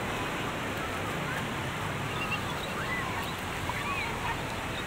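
Steady wash of surf breaking and running up a sandy beach, with faint distant voices of people in the water.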